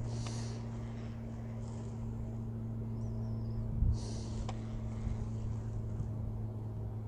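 A steady low motor hum runs throughout, with a few short bird chirps high above it and two brief hissy bursts, one near the start and one about four seconds in.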